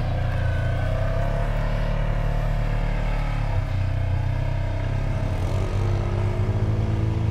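ATV engine running steadily while riding, its pitch wavering a little with the throttle.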